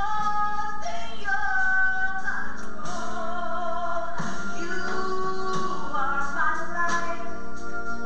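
A woman singing solo into a handheld microphone over musical accompaniment, holding long notes.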